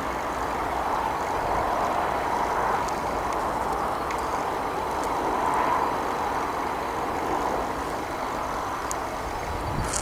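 Distant passenger train running along the line: a steady rushing noise that swells and eases gently.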